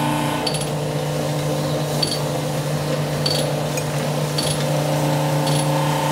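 Sunnen CV-616 vertical cylinder hone running steadily, stroking its honing head up and down in a cylinder bore of the engine block to open up the piston-to-wall clearance. Its motor gives a steady hum, with a light tick about once a second.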